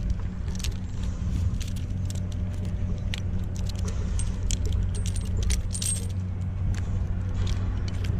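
Metal climbing and rigging hardware jingling and clinking in quick, irregular bursts over a steady low engine hum.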